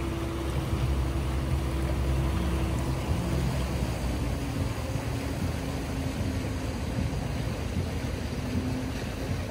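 Boat engine running steadily at low speed, a low hum with water noise along the hull; its note dips slightly about three seconds in.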